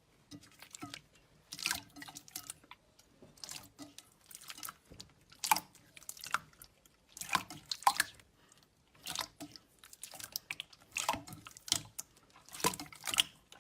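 Slime being squeezed and worked by hand, making irregular wet clicks and pops in small clusters.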